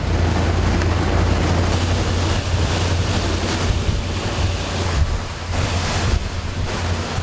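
Wind buffeting the microphone over rushing sea water and a steady low rumble, on a boat under way at sea.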